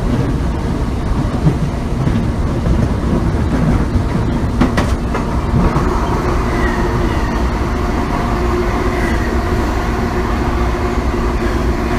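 Onboard running sound of an MTR East Rail Line MLR electric train: a steady rumble of wheels on rail with a sharp click about halfway through. Traction motor whine rises out of the rumble in the second half, including a high tone for a few seconds.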